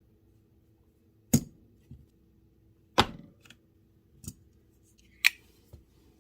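Folding pocket knife clicking as it is handled: four sharp metallic clicks spaced about a second or more apart, with fainter clicks between them.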